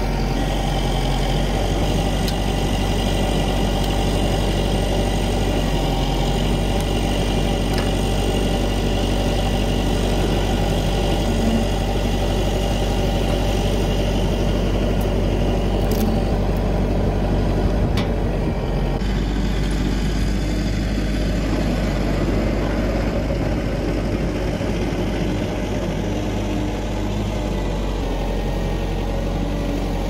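Woodland Mills HM130Max portable sawmill running steadily, its engine driving the band saw blade through a spruce log. The cutting noise thins out about two-thirds of the way through.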